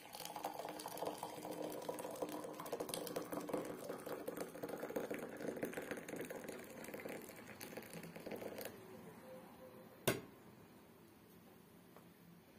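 Water at a rolling boil in a metal kettle, a dense rapid rattling bubble that stops abruptly about two thirds of the way through, followed by a single sharp clack.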